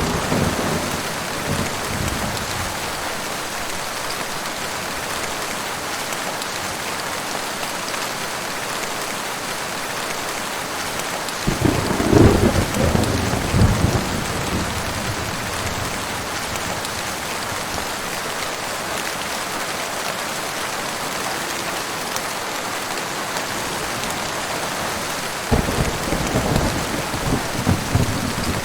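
Heavy rain falling in a steady hiss, with thunder rumbling twice, about twelve seconds in and again near the end, and an earlier rumble dying away at the start.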